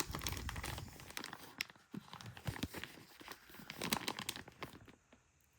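A knife's sealed packaging bag crinkling and rustling as it is handled, with small clicks; it stops about five seconds in.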